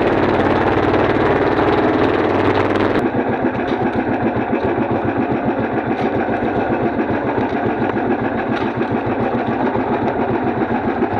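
Small fishing-boat engine running steadily, with an abrupt change in its note about three seconds in, after which it goes on with a rapid, even pulsing.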